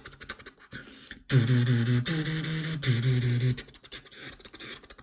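Quick clicks and crackles of a surprise egg being handled and opened, broken about a second in by three held low buzzy tones in a row, each a slightly different pitch, like a short electronic jingle.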